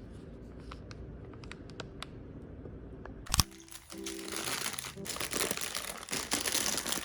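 Soft background piano music with small clicks, then a sharp knock about three seconds in, followed by plastic packaging crinkling and rustling.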